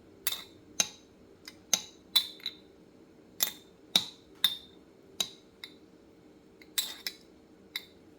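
A spoon clinking against the side of a container as lemonade is stirred: irregular sharp clinks, about two a second, each ringing briefly.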